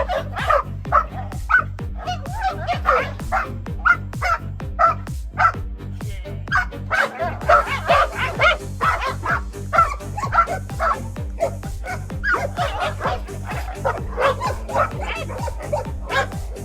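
Dog barking over and over, a few barks a second, continuing steadily, over background music with a steady low backing.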